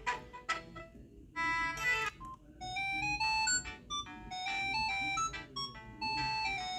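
Samsung SGH-D500C mobile phone ringtones: a run of short repeated notes stops within the first second, and after a brief pause a new electronic melody of stepped tones begins about a second and a half in.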